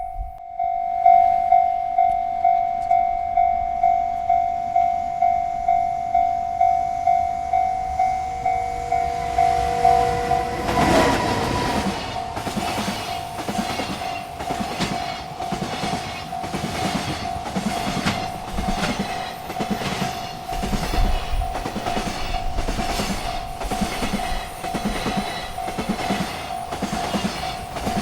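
Railroad crossing bell ringing in a steady pulse about twice a second. About eleven seconds in, a freight train reaches the crossing, and its wheels clack over the rail joints in a regular rhythm while the bell keeps ringing.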